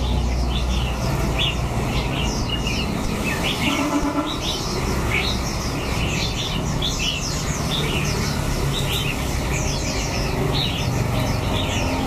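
Many caged red-whiskered bulbuls and other small songbirds chirping densely and without pause, many short calls overlapping, over a low steady rumble.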